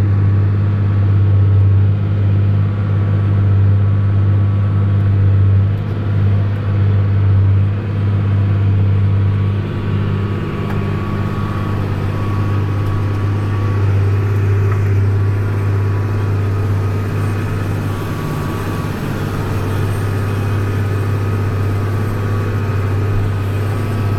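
New Holland TG285 tractor's diesel engine running steadily under load while pulling a plough, a low, even drone that eases slightly about halfway through.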